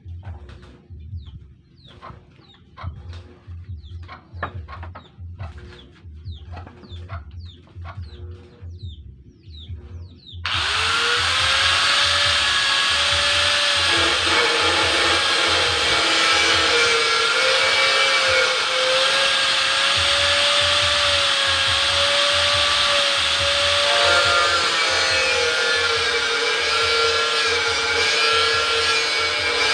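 An electric angle grinder spins up about ten seconds in, its whine rising to speed, then cuts a metal rectangular tube with a loud, steady grinding whose pitch dips twice as the disc bites under load. Before it starts, short bird chirps.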